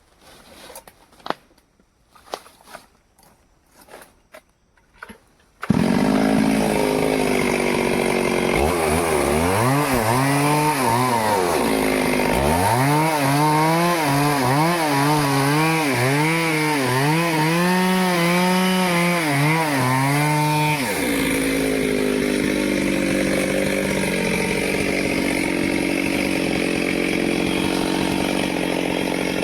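A few light knocks, then a Stihl chainsaw running loud from about six seconds in. For a stretch its engine pitch swings up and down about once a second, then it runs steadier.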